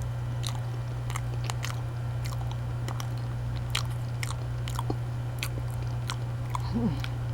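A person chewing a mouthful of banana: soft, wet mouth clicks and smacks at irregular intervals, with a short hummed "mm" near the end. A steady low hum runs underneath.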